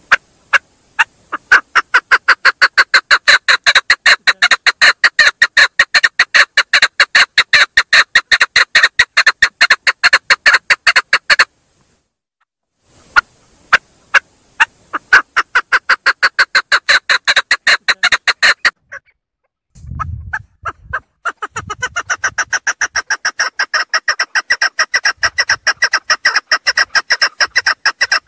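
Female chukar partridge calling: long runs of quick clucking notes that start slowly and speed up to about four or five a second, in three bouts with short pauses between, the last bout brighter and a little quieter. A few low thuds come in the pause before the last bout.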